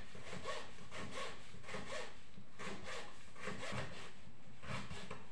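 Kitchen knife slicing a carrot into thin strips on a wooden cutting board: a steady run of short, repeated cuts.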